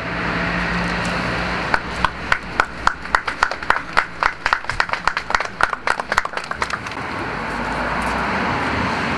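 Scattered applause from a small outdoor crowd: irregular hand claps for about five seconds, beginning a couple of seconds in, over a steady background rumble that swells slightly near the end.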